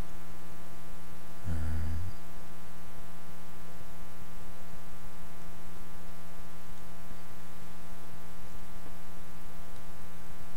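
Steady electrical mains hum with hiss in the recording, with a brief low sound about one and a half seconds in.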